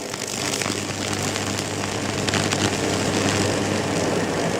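High-voltage arc from a microwave oven's 2-kilovolt transformer burning across a tree branch. It gives a steady low electrical buzz with hiss and scattered crackling, building up over the first second.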